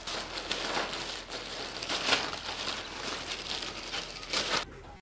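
Rustling, crackling noise that swells and fades in several surges, then cuts off abruptly near the end.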